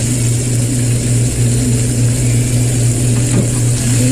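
A steady low mechanical drone from the kitchen, over the hiss of a ribeye steak searing in a hot cast-iron grill pan. Near the end comes a light clink as metal tongs take hold of the steak.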